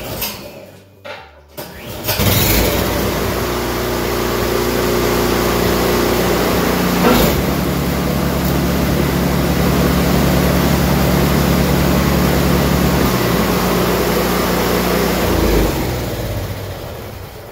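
A two-stage snowblower engine is started about two seconds in, after a few knocks, and runs steadily with the drive engaged. The second-stage impeller spins fast, but the auger only turns loosely because its shear pins are broken. The engine is shut off near the end and runs down.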